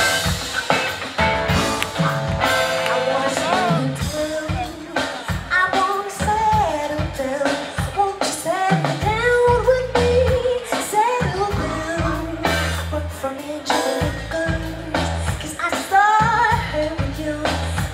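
Live band music with a singer holding and bending long melodic lines without clear words, over bass and drums.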